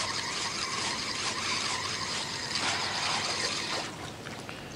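Spinning reel on a feeder rod being cranked steadily, winding in a small silver bream on the line; the winding stops abruptly about four seconds in.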